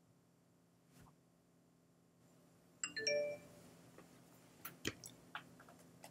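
macOS Installer's completion chime: a short pitched ding about three seconds in, as the installation finishes successfully. It is followed by several soft clicks.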